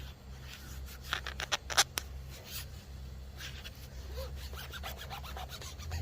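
Hands rubbing and scraping a vinyl decal down through its transfer paper onto a boat hull, in quick uneven strokes that are loudest about a second or two in.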